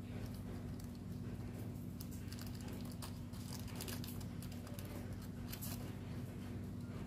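Scattered small clicks and crinkly rustles of hands handling light materials, over a steady low hum.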